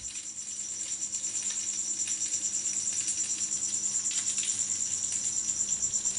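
A steady, high-pitched chirping trill that pulses evenly several times a second, over faint bubbling and splashing of boiling water as a foil-wrapped roll is lifted out of the pot with tongs.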